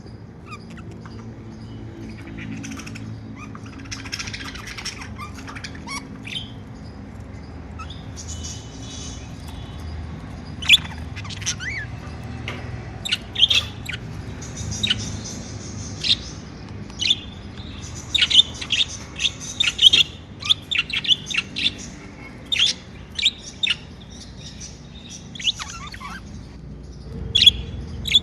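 Pet budgerigars chirping and warbling: quieter chatter at first, then a busy run of short, sharp chirps from about ten seconds in, over a low steady hum.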